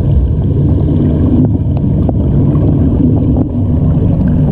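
Muffled underwater sound from a GoPro in its waterproof housing in a swimming pool: a steady low rumble with a few faint clicks.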